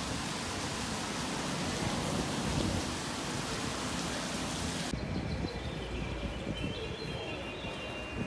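A steady, even hiss that cuts off abruptly about five seconds in, leaving a quieter low rumble with faint thin high tones.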